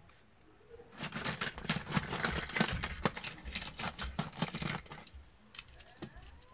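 Rapid clattering and rustling of plastic toys and cardboard boxes being rummaged through, starting about a second in and dying away after about four seconds.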